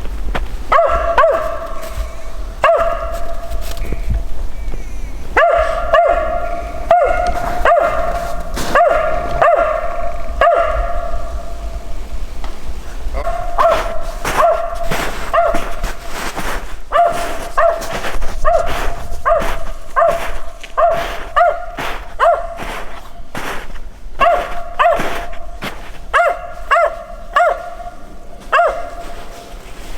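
Mountain feist dog barking over and over in quick runs of short barks, with a couple of brief pauses.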